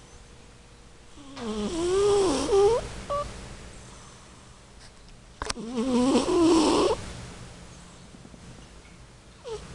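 Persian cat snoring in its sleep: two long snores about four seconds apart, each with a wavering, whistling pitch, and a third just beginning at the end.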